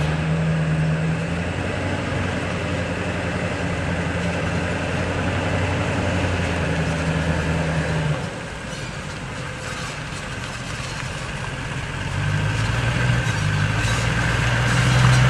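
Pickup truck's engine running at low speed while it tows a heavy old truck. The engine note drops and quietens about eight seconds in, then rises and grows louder near the end as the truck comes closer.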